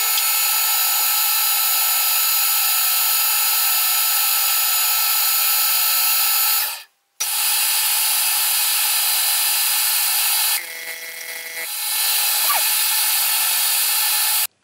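Metal lathe running under power while screw-cutting a thread, a steady loud whir with several high whining tones from its gearing. The sound breaks off for a moment about seven seconds in, is quieter for about a second a little after ten seconds, and stops abruptly at the end.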